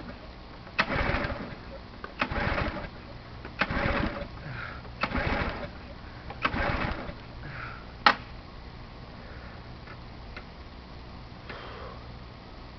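Recoil pull-starter on a Simoniz 2350 PSI pressure washer's gas engine, yanked five times in quick succession, about one pull every second and a half, the engine turning over with each pull but not firing. A single sharp click follows about eight seconds in. The owner takes the failure to start as the engine not getting gas, on a cold start after months of storage with fogging oil in the cylinder.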